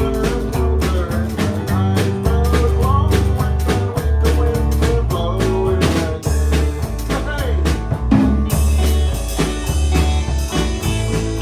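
A band playing with a steady drum beat, bass and guitars.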